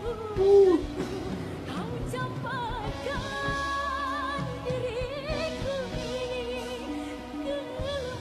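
A female dangdut singer singing a slow song over band accompaniment, her held notes wavering with the ornamented vibrato (cengkok) typical of dangdut. A brief loud voice cuts in about half a second in.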